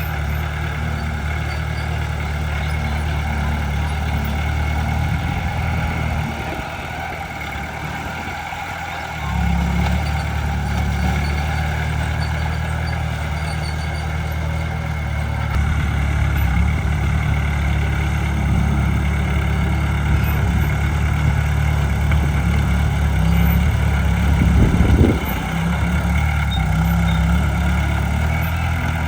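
Heavy diesel engine of earthmoving machinery running steadily under load. It eases off about six seconds in, picks up again around nine seconds, and surges briefly near the end.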